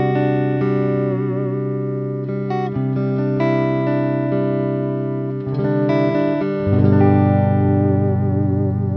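Electric guitar playing sustained chords through GFI System reverb and delay pedals, the notes ringing on into each other with a slight wavering in pitch. A new, louder chord comes in about seven seconds in.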